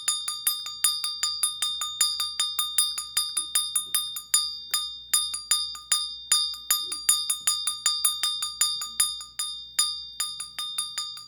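Small metal hand bell rung over and over in quick succession, about four strikes a second, each strike ringing on with the same high, bright tone.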